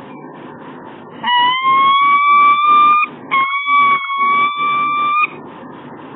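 Peregrine falcon giving two long calls back to back, each about two seconds and rising slightly in pitch, over a steady hiss.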